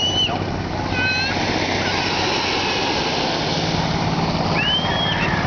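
A bangka outrigger boat's engine running steadily at low speed over a wash of water noise. Two short high-pitched calls, one at the start and one near the end.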